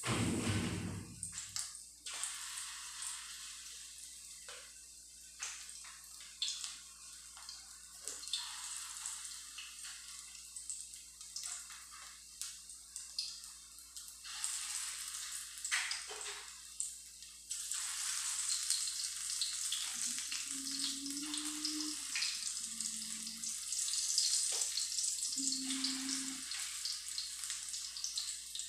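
Pork meatballs deep-frying in oil in a steel wok: a steady sizzle full of small crackles and pops, stepping up in loudness about two-thirds through as more meatballs go into the oil. A dull thump at the very start.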